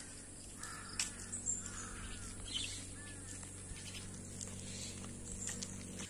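Birds calling: three short calls about a second apart in the first half, with a few fainter, higher chirps.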